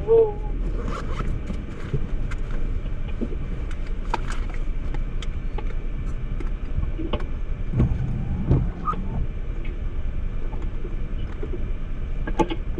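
Car running, heard from inside the cabin as it is driven and pulled over to park: a steady low rumble with scattered clicks and knocks.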